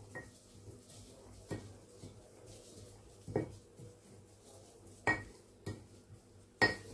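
Wooden pestle knocking and scraping in a mortar as powder and oils are worked into a paste: about six separate clinks at irregular intervals, the loudest near the end.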